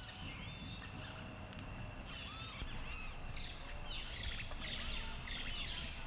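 Tropical rainforest ambience: many birds calling with short, curving chirps and whistles over a low background rumble, with a steady high tone running through about the first half.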